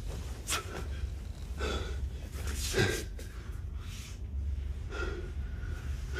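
A man gasping for breath, four or five sharp breaths about a second apart as he comes round from being frozen, over a steady low hum.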